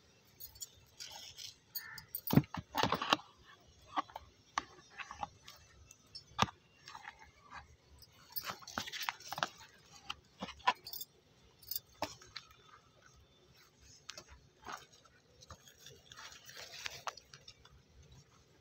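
Leaves and stems of gourd vines rustling and snapping close to the microphone as ridge gourds are picked, with irregular sharp clicks and a louder cluster of snaps about two to three seconds in.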